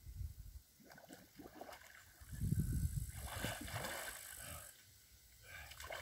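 Lake water splashing and sloshing as a swimmer moves his arms through it, with a low rumble about two seconds in.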